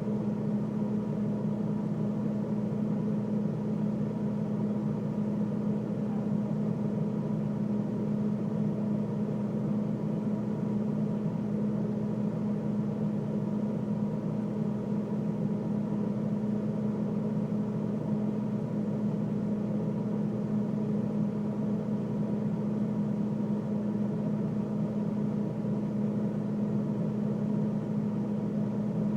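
A freezer running, heard from inside the freezer: a steady, unchanging hum with one strong low tone and fainter higher tones over a soft rush.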